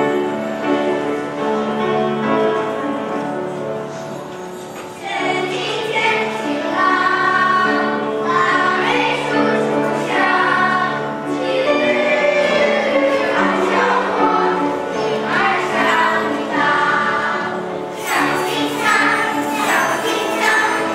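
Children's choir singing a song in Mandarin with instrumental accompaniment. The accompaniment plays alone for about the first five seconds before the voices come in.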